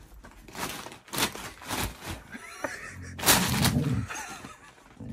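Wrapping paper crinkling and rustling in repeated bursts as a malamute paws and bites at a wrapped present. A short, low dog grumble about three seconds in.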